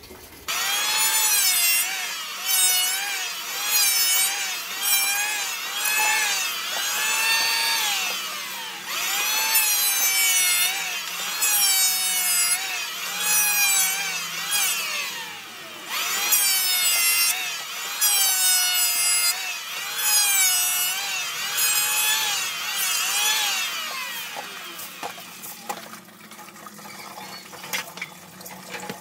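Makita DHS900 36V brushless cordless circular saw cutting wood. Its high whine dips in pitch under load and recovers about once a second, winds down with a falling pitch three times, then stops about 24 seconds in.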